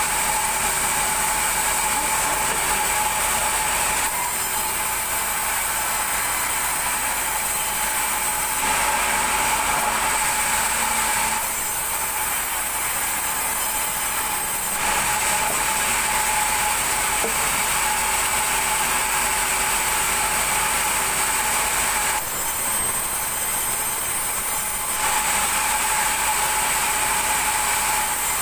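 Large vertical band saw mill running loudly with a steady high whine while a thick timber slab is fed through the blade. Its tone changes every few seconds.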